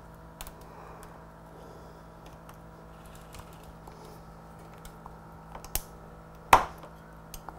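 Aftermarket motorcycle clutch lever and its pivot bearing being pressed into the clutch perch by hand: scattered small clicks and taps of the metal parts, the sharpest about six and a half seconds in.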